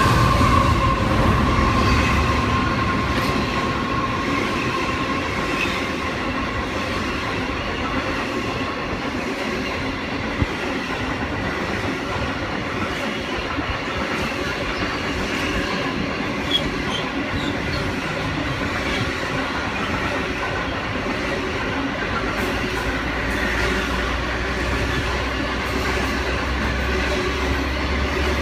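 Indian Pacific passenger carriages rolling past at the platform, wheels clattering over the rail joints as a steady rumble. A high wheel squeal fades out over the first few seconds, two sharp clicks come later, and a low hum joins about two-thirds of the way through.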